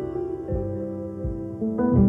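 Background music: soft piano-led instrumental, notes held and changing, with a gentle low pulse.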